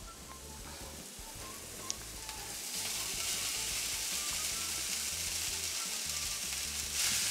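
Food sizzling in a hot frying pan as cooked brown rice is tipped in over sautéed onion and red pepper; the sizzle grows louder about three seconds in and then holds steady.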